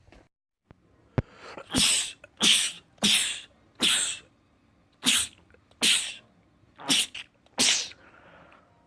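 A man sneezing in a fit: eight sneezes in quick succession, about one a second, with a brief break midway through the run.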